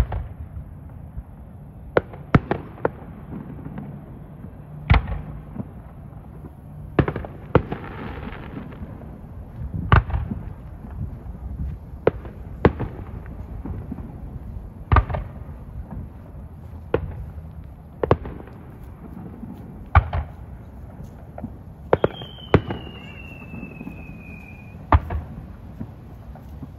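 Aerial fireworks shells bursting in the sky as sharp bangs, one every two to three seconds and some in quick pairs. Near the end a high whistle slides slowly down in pitch for about two seconds.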